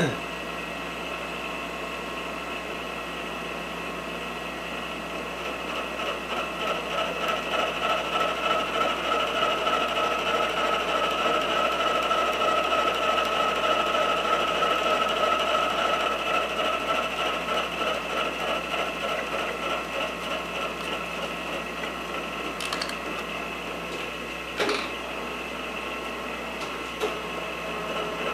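Milling machine running as a spiral end mill is fed into 4140 steel, cutting one flat of a hex. The cutting sound swells for about ten seconds in the middle and then eases off, with two short sharp clicks near the end.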